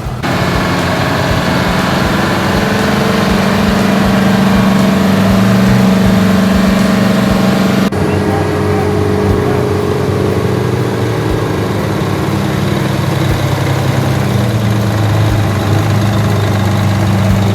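Antique truck engine idling steadily and loudly, with a sudden change in its tone about eight seconds in.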